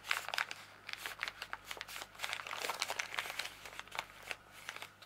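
Thin plastic bag of a diamond painting tool kit crinkling and rustling as it is handled, in irregular crackles.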